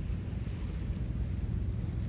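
Sea waves washing in under a steady low rumble of wind on the microphone.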